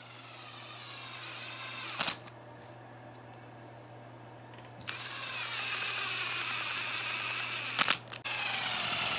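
Power drill driving self-tapping screws into a dirt bike tyre as studs: three runs of motor whine, the pitch sagging as each screw bites in, with a quiet gap after the first run and sharp clicks where the runs stop.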